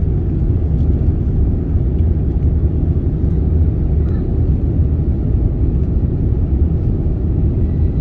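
Steady low rumble of jet airliner cabin noise, the engines and rushing air heard from inside the cabin.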